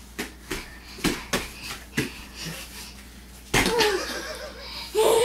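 A toddler's hands slapping the floor, about six sharp slaps in the first two seconds, then the child's excited vocalizing from about three and a half seconds in.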